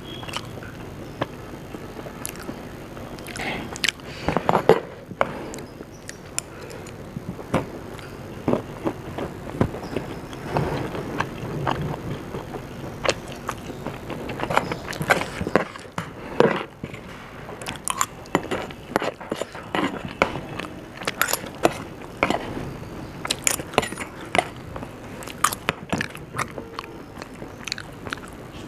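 A person eating, with irregular biting and chewing sounds and many short, crisp crunches and clicks.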